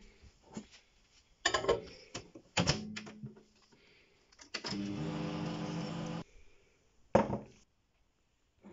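Clicks and knocks from a microwave oven's door and control dial, then the microwave running on a 20-second heating setting with a steady electrical hum for about a second and a half, which cuts off suddenly. A single sharp knock follows near the end.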